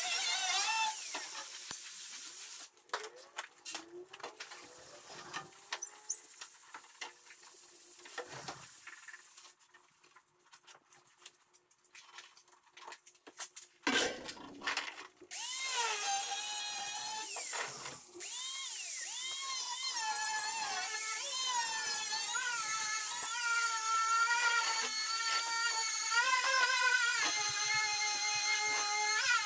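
Angle grinder cutting the sheet metal of a 1973 Plymouth Duster's lower quarter panel, stopping about three seconds in. Then come scattered clicks and knocks, and from about halfway a loud steady whine that wavers in pitch.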